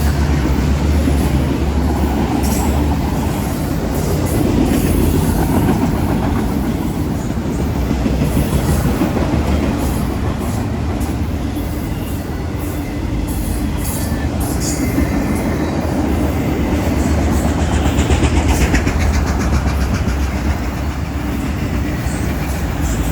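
CSX freight train rolling past, its steel wheels running steadily on the rails with loud, even noise.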